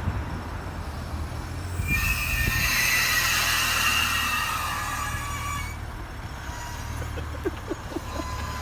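Nissan Elgrand minivan squeaking while it moves: a high-pitched squeal sets in about two seconds in and stops about four seconds later, over a steady low road rumble. It creaks like an old carriage.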